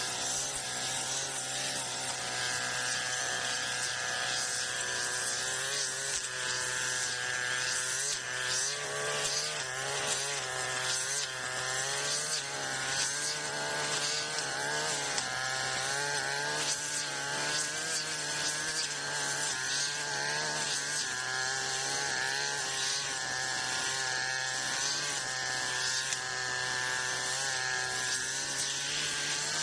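Brush cutter (grass-cutting machine) engine running hard and steadily while cutting tall grass, its pitch dipping and recovering repeatedly as the blade meets the grass, with rough crackling from the cutting.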